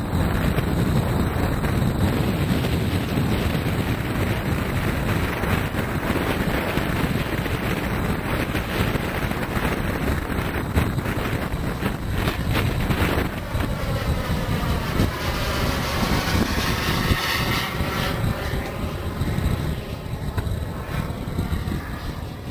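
Twin model jet turbines of a scratch-built de Havilland DH110 running steadily in flight, heard as a constant rushing jet noise. The sound sweeps in a swooshing, phasing way as the jet passes over, from a little past halfway to near the end. Wind buffets the microphone throughout.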